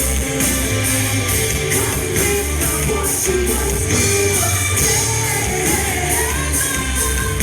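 Rock band playing live at full volume, the drums keeping a steady cymbal beat.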